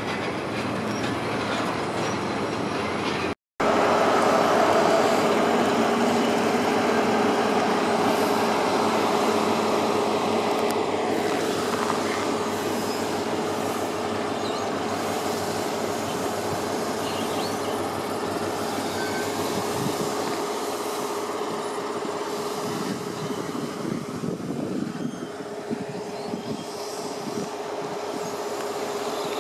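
First Great Western InterCity 125 high speed train running slowly into the platform: the diesel power cars and the coaches' wheels on the rails, with a steady hum throughout. The sound drops out for a moment about three seconds in.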